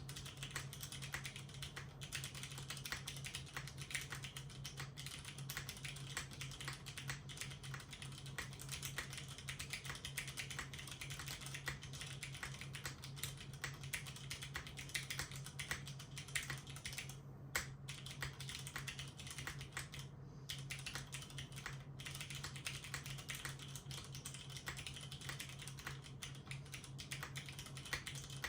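Continuous fast typing on a mechanical keyboard with unlubed Cherry MX Brown Hyperglide tactile switches on 65g springs, an aluminium plate in an o-ring mount, and GMK keycaps, with two short pauses past the middle. A steady low hum runs underneath.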